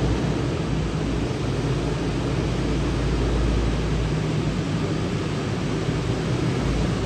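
Chevrolet Silverado flatbed work truck's engine running as the truck rolls slowly in, a steady low rumble under an even hiss.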